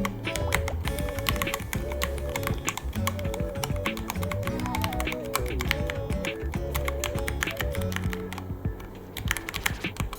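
Ducky One 3 mechanical keyboard being typed on in quick, continuous keystrokes, the typing easing off briefly near the end, over background music.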